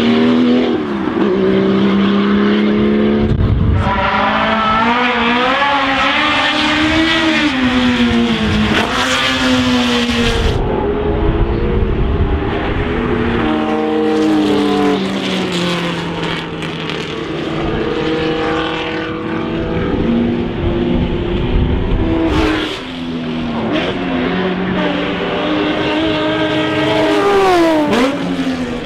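Historic racing car engines at full throttle, revving up through the gears and passing by, across several shots edited together. The pitch climbs and falls back repeatedly with each gear change and pass.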